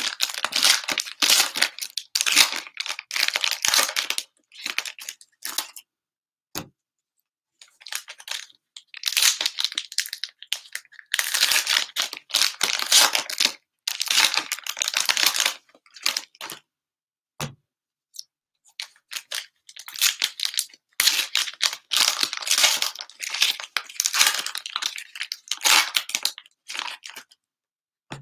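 Foil trading-card pack wrappers being torn open and crinkled by hand, in irregular bursts of crackling with a few short pauses.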